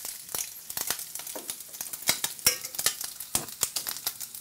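Strips of dry-cured smoked bacon frying hard in a frying pan: fat sizzling with a steady hiss and many sharp crackling pops as the fat renders out.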